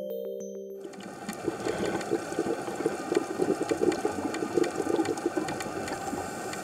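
Synth music fades out in the first second, then a dense water-like bubbling and crackling, full of fast irregular clicks, carries on to the end.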